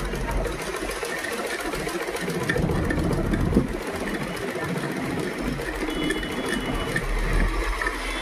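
Usha sewing machine stitching cloth at a steady, even speed, its needle and shuttle mechanism clicking rapidly; it runs without fault, with its shuttle timing freshly set.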